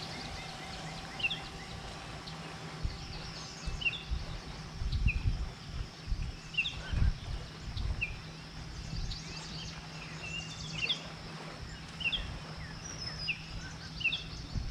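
A bird calling over and over with short, high, downward-sliding chirps, about one every second or so, over a low, gusting rumble of wind and water on the microphone.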